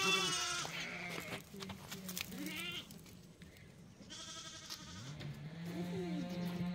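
Goats bleating: a call at the start, a short one about two and a half seconds in, and a longer call from about four seconds on.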